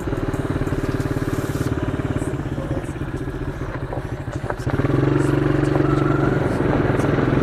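125cc quad's single-cylinder engine running at low speed, with an even pulsing beat; about five seconds in it gets louder as the throttle opens.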